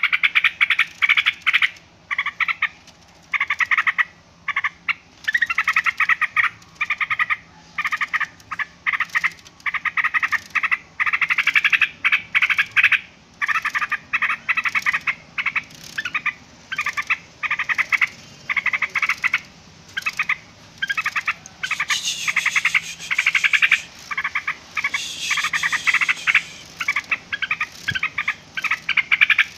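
Yellow-vented bulbul calling noisily: rapid runs of chattering notes broken by short pauses. The calls turn brighter and harsher for a few seconds about two-thirds of the way through.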